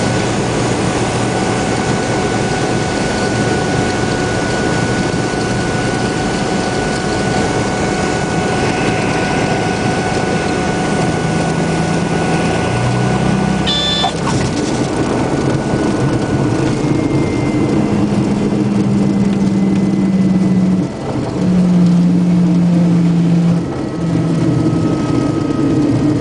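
Cessna 182 engine and propeller running steadily, heard as cabin drone. There is a sharp click about halfway through. In the second half the sound eases, with low hums that come and go.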